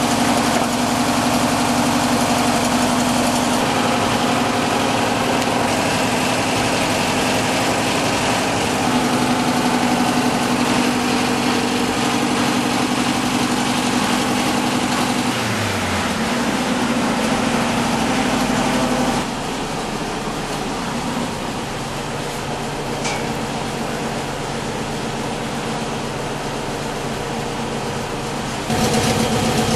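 Air-cooled flat-four engine of a 1960 Volkswagen Double Cab idling steadily. It drops a little in level for a stretch in the second half.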